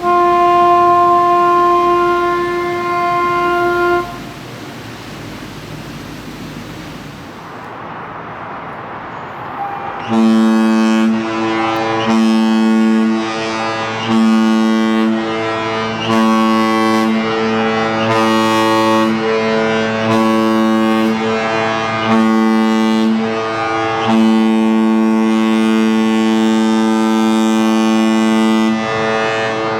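Kahlenberg KM-110 ship horn, a compressed-air horn, sounding. A steady higher-pitched horn note lasts about four seconds, followed by several seconds of hiss. Then a deeper horn sounds a run of blasts of about two seconds each with short breaks between them, ending in one longer blast of about five seconds.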